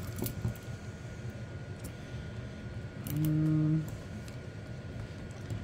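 Faint metal clicks and clinks from the links of a metal prong (pinch) training collar being handled and squeezed to unhook them. A short, low, steady hum comes a little past three seconds in.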